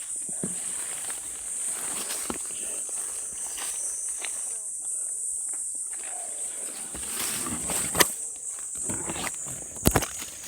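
Steady high-pitched insect buzzing, with scattered knocks and scrapes of a hand digging tool working into the soil around a bellflower root. Two sharp strikes near the end are the loudest sounds.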